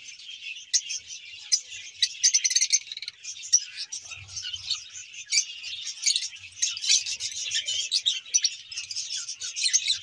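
A flock of small aviary birds (lovebirds, budgerigars and finches) chirping and twittering continuously, with many short high calls overlapping.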